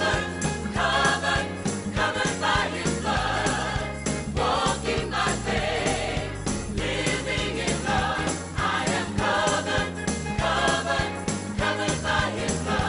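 Gospel music with a choir singing over a steady beat and percussion, with a jingling tambourine-like shimmer.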